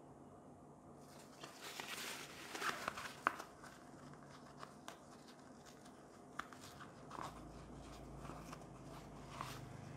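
Fabric rustling and handling noise from a silk sleep eye mask with built-in headphones being unfolded by hand, busiest in the first few seconds, with a few sharp clicks.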